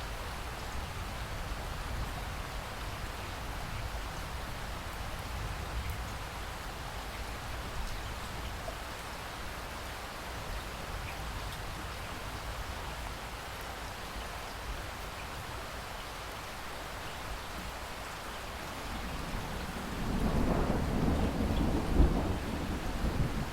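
Steady heavy rain falling in a rainforest, an even hiss. Near the end a thunder rumble builds and grows louder, with one sharper crack within it.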